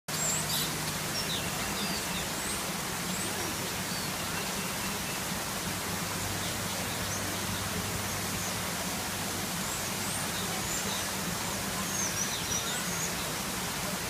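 Steady rushing background noise with a low hum, over which small birds give scattered short, high chirps and whistles.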